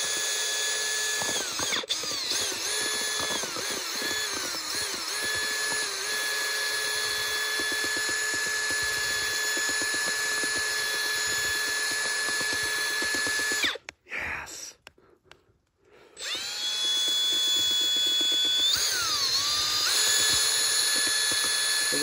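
Makita drill-driven mixer spinning its mixing shaft in a metal cup of ice cream milkshake: a steady motor whine that dips and recovers in pitch several times as the trigger is eased. About two-thirds of the way through it stops for two seconds, then spins back up with a rising whine and steps up in speed again.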